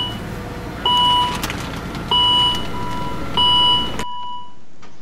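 Volvo S80's engine idling, heard from inside the cabin, while the door-open warning chime beeps about every second and a quarter. About four seconds in the engine is switched off and its rumble cuts out suddenly.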